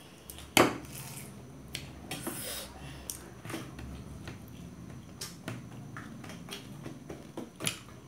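Forks clicking and scraping on metal plates while fried momos are chewed, with a sharp clink about half a second in.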